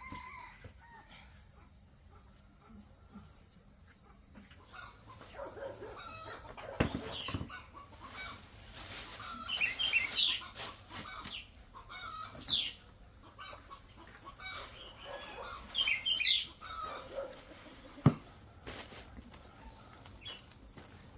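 Chickens clucking and squawking, with a flurry of wing flapping around the middle. Two sharp knocks stand out, about seven and eighteen seconds in.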